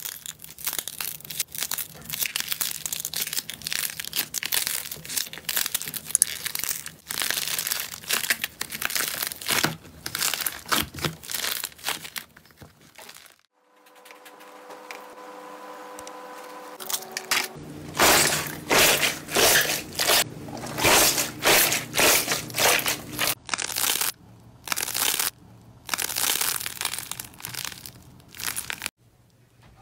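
Slime being squeezed, pressed and poked by hand, with dense crackling and crinkling. After a short pause in the middle, a run of loud, regular squishes follows, about two a second.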